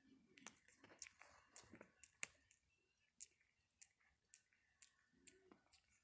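Java macaque grooming a person's hair right by the microphone: faint, irregular small clicks, two or three a second, with a little rustling of hair and one sharper click about two seconds in.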